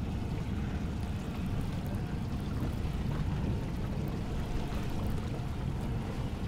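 Low steady rumble of a Suzuki outboard idling as the boat slow-trolls, with water sloshing and splashing around the hull.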